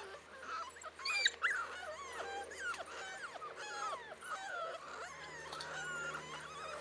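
Several puppies whining and whimpering: a dense run of short, high, sliding whines overlapping one another.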